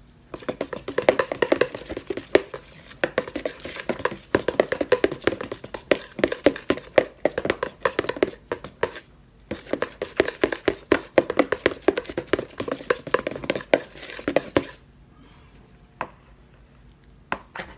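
Cake batter being stirred by hand in a mixing bowl to work in red food colouring, the utensil knocking and scraping rapidly against the bowl. It pauses briefly about nine seconds in and stops a few seconds before the end, leaving a couple of single clicks.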